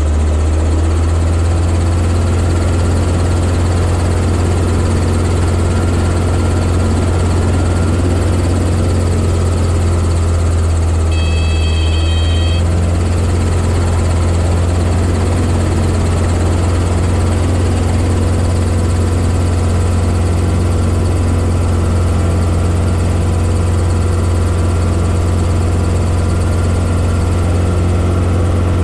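Robinson R22 helicopter heard from inside the cockpit, its engine and rotor running with a steady deep drone. About eleven seconds in, a high electronic beep sounds for a second or so over the drone.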